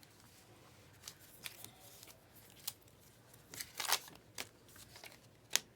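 Trading cards being handled and flipped through, with dry flicks and slides of card stock. The loudest moments are a quick cluster of flicks about four seconds in and a single sharp snap near the end.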